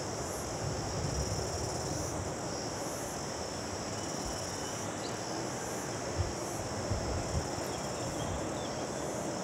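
Outdoor ambience: a steady high-pitched chirring of insects over a low, uneven rumble, with a few faint knocks about six to seven seconds in.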